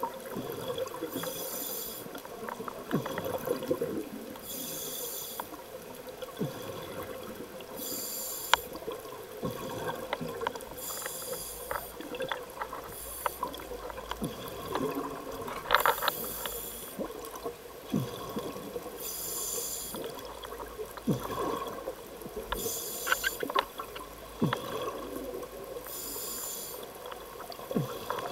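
Scuba diver breathing through a regulator underwater: a hissing burst of exhaled bubbles about every three seconds, each lasting about a second, with bubbly crackling and small clicks in between.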